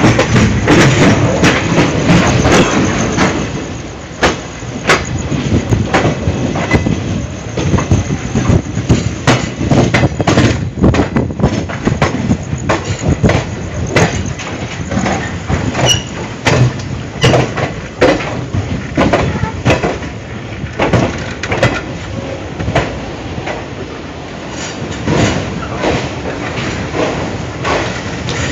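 Express passenger train running through a junction at speed, its wheels clattering irregularly over rail joints and points over a steady rumble.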